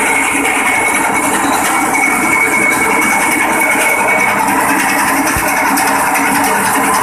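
Engine-driven grass chopper (forage cutter) running steadily, its small engine and spinning cutter making a loud, even mechanical noise with a thin high whine that comes and goes.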